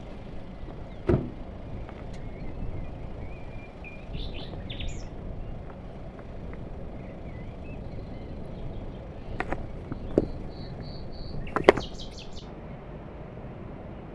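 Stones knocking against each other as flat rocks are lifted and shifted among loose rubble: one sharp knock about a second in, then a few more near the end, the last the loudest. Birds chirp in short calls over a steady background rush.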